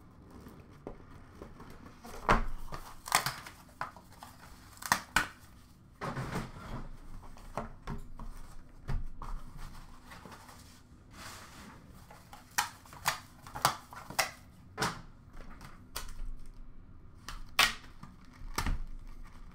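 A cardboard hobby box of hockey cards being opened and handled, with the small inner boxes pulled out and set down: scattered sharp clicks and taps of cardboard, with short stretches of rustling and tearing of packaging.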